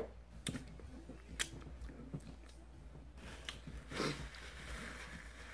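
Close-up chewing of food with a few sharp mouth clicks, then a paper napkin rustling about three seconds in as the mouth is wiped.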